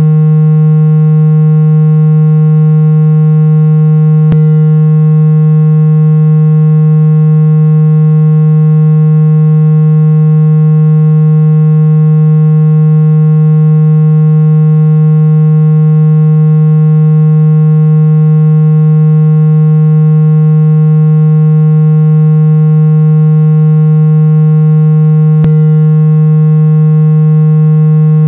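Steady low synthesized tone, a humming buzz with many overtones, held unchanging and played as an ear-therapy sound meant to open blocked ears. A faint click comes about four seconds in and again near the end.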